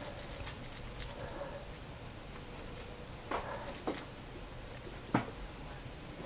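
Grated Parmesan shaken from a plastic shaker canister: a soft, irregular patter of shakes, with a few louder knocks in the second half.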